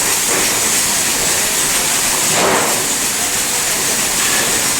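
Heavy rain pouring down, a steady dense hiss, with a brief swell about halfway through.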